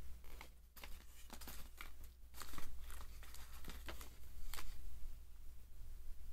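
Paper crinkling and rustling as a folded instruction leaflet and a notice card are handled, a run of short crackles for the first four or five seconds, then quieter.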